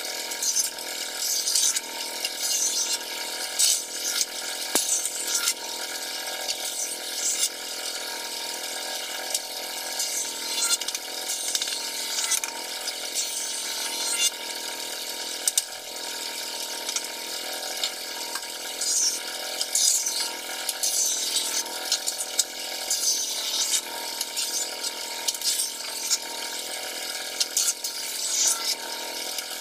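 Steady hiss with scattered clicks and knocks as steel bar clamps are handled and set on a wooden cabinet door.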